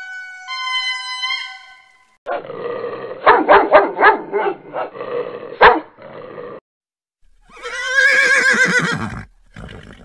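A sequence of animal calls. First, about two seconds of a lemur's high, gliding wail. Then a dog howling and barking, with several sharp yelps. Near the end a pony whinnies with a wavering, falling pitch.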